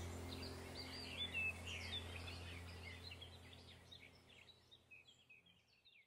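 Faint birdsong of many short chirps and whistles over a steady low hum, fading out near the end.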